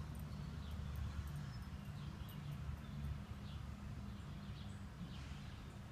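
Outdoor backyard ambience: a steady low rumble with faint, short bird chirps every second or so.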